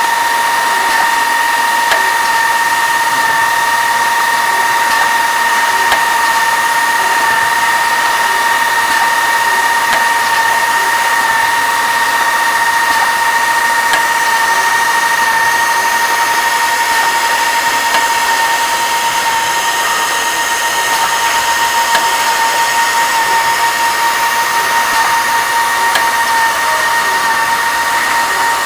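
A MAB drilling-and-tapping machine for second-operation reaming and threading, running with a steady high whine and a few faint clicks.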